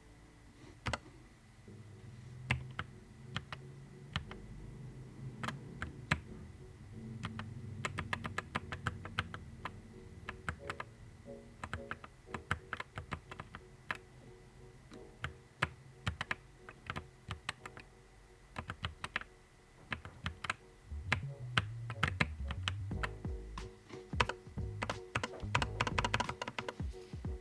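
Typing on a Nuphy Air 75 V2 low-profile mechanical keyboard: irregular key clicks that grow into a fast flurry near the end. Soft background music plays underneath.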